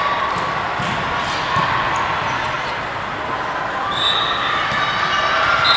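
Volleyballs being hit and bouncing in a busy indoor sports hall, several sharp ball impacts over a steady, echoing hubbub of players and spectators.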